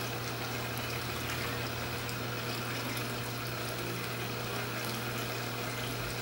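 A steady low machine hum with an even rushing hiss over it, unchanging throughout.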